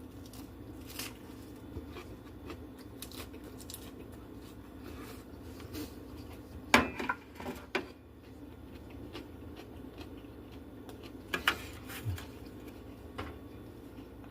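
Eating sounds: a handful of sharp clinks and taps of utensils and dishes, loudest about seven seconds in and again about eleven seconds in, over a steady low hum.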